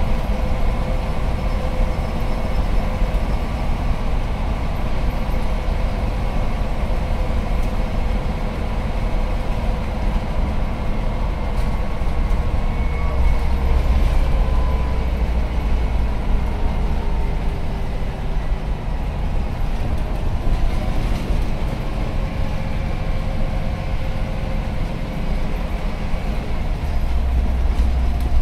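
Scania OmniCity bus under way, heard from the rear seats inside the cabin: the diesel engine is being worked hard, with a heavy low drone that swells twice, and faint whines that slowly drift in pitch as the speed changes, over road noise.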